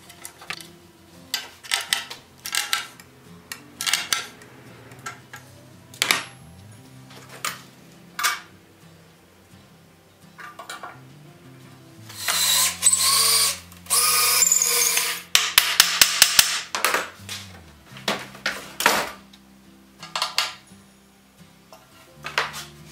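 Cordless drill run in two bursts of about a second and a half each, around the middle, driving into the wooden bobsled runner. A quick run of clicks follows, and scattered clicks and knocks of hand tools being handled on a metal bench come before and after.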